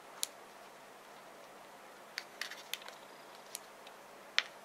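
A sheet of origami paper being folded and creased by hand: a few short, scattered crinkles and clicks from the paper, the sharpest near the end.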